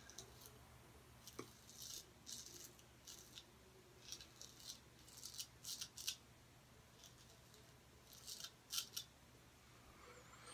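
Henckels 415 straight razor scraping through lathered stubble on the cheek and jaw: short, faint rasping strokes in small clusters.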